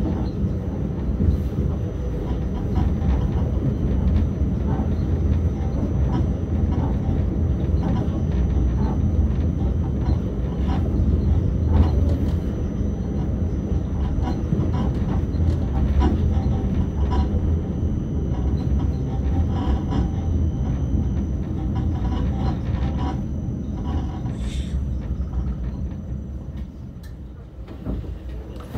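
Wiener Linien tram running along street track: a steady low rumble of wheels on rails, with scattered clicks and knocks and a faint high steady whine. The running noise drops away near the end as the tram slows.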